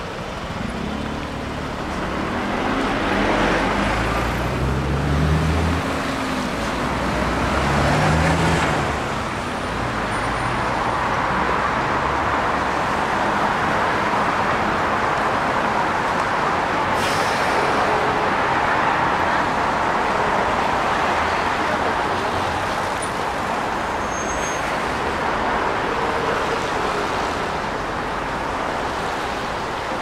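City buses pulling away from a stop, their engine note rising in pitch twice in the first ten seconds, then steady traffic noise from vehicles on a wet road.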